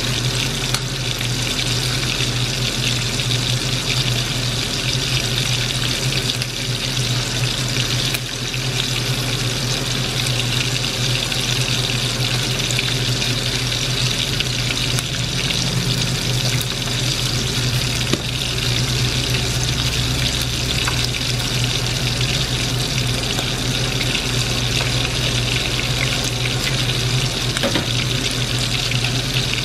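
Battered squid rings deep-frying in hot oil in a wok: a steady, even sizzle of bubbling oil, with a steady low hum underneath.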